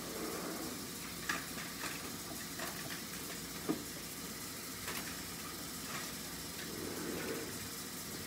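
Steady hiss, with light clicks and knocks every second or so.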